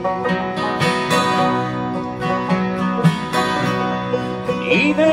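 Bluegrass band playing an instrumental break: acoustic guitar strumming with banjo picking, no voice.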